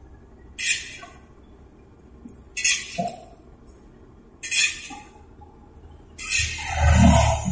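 Long-handled metal spatula scraping and clinking against a large aluminium wok of frying tofu in hot oil. There are four strokes about two seconds apart, the last one longer and the loudest, over faint sizzling of the oil.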